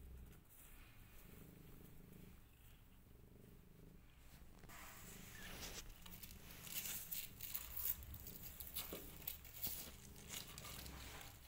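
Mother cat purring steadily. From about five seconds in, irregular rustling and crinkling joins it.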